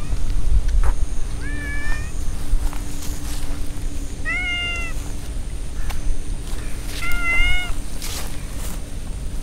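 A cat meows three times, each call short, about half a second long. The second and third meows are louder than the first.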